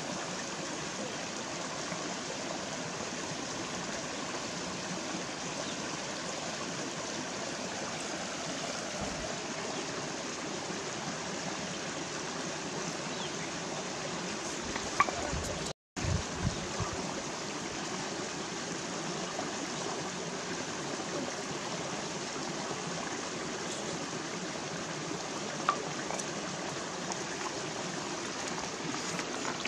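Shallow rocky stream flowing, a steady rushing and trickling of water over stones, with a few faint clicks. The sound cuts out for a moment about halfway through.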